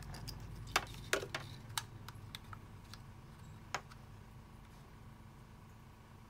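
Light plastic clicks and taps, about six in the first four seconds, as a digital caliper's jaws are slid and set against a clear plastic charger case, over a faint steady low hum.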